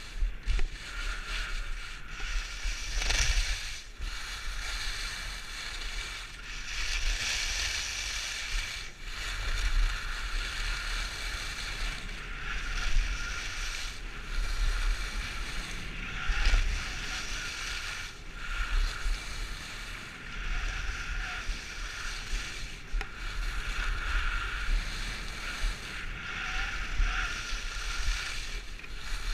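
Skis carving turns on firm, freshly groomed corduroy snow: a hissing scrape that swells and fades with each turn every couple of seconds, over a steady low rumble of wind on the microphone.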